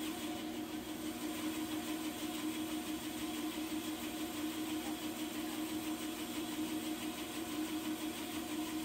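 Band saw running with no wood in the blade: a steady motor and blade hum.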